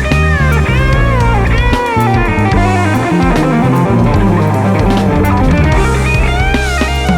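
Band playing live: an electric guitar plays a lead line full of bent and sliding notes over bass guitar and a drum kit.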